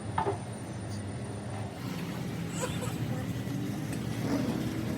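A steady low engine hum, with faint voices and a few light clicks over it.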